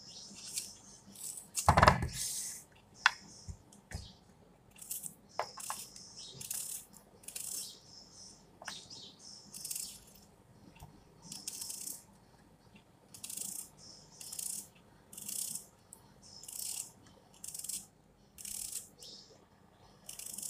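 Knife slicing through a red onion held in the hand, a crisp crunch with each cut, roughly one cut a second. A single heavy knock comes near two seconds in.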